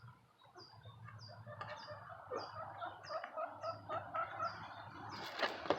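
Domestic hen clucking in a run of short, low calls, with one louder call near the end. A small bird repeats a short high chirp about twice a second in the background.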